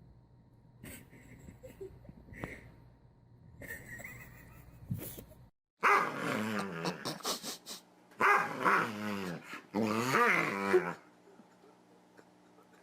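A dog vocalizing in growls and drawn-out whines whose pitch wavers up and down, in three long stretches starting about six seconds in; the first few seconds hold only faint clicks and knocks.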